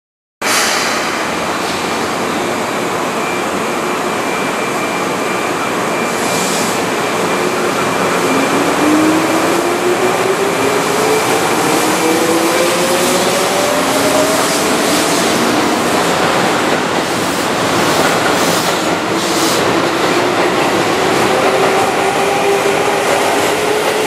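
Keihan 6000-series electric commuter train pulling out of a station. Over its steady running noise, the traction motors' whine starts about eight seconds in and climbs in pitch as the train gathers speed.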